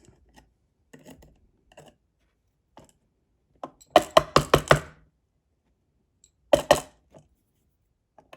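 Metal lock parts being handled on a hard surface while a Medeco cylinder is taken apart to remove its pins: light scattered clicks, then a quick run of about six sharp knocks, and two more knocks a couple of seconds later.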